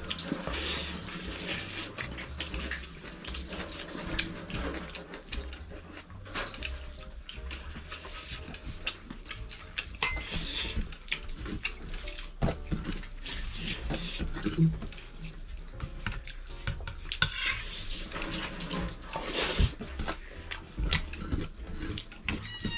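Eating by hand from a metal plate: fingers mixing and scooping rice and curry with wet squelches, small clinks and scrapes against the plate, and chewing. A cat meows right at the end.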